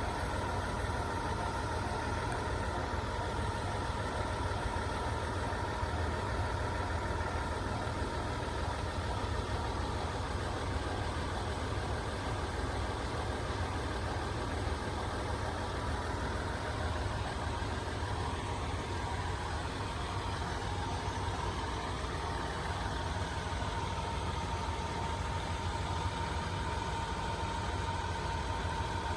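Steady low rumble with a steady hum, as of a vehicle idling.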